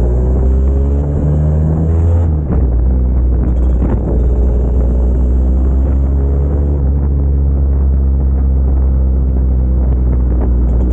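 Motor scooter engine running on the move, heard from the scooter itself. Its note climbs slightly over the first two seconds, changes about two seconds in, then holds steady.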